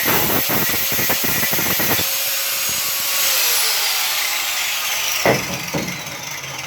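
Angle grinder running loudly against metal rivets, with rapid rough chatter. About three seconds in it is released, and its whine falls steadily as the disc spins down. A sharp knock comes near the end.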